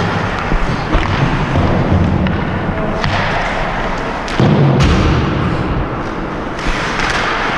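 Ice hockey skate blades carving and scraping on rink ice, with dull thumps and a low rumble of the body-worn camera moving with the skater.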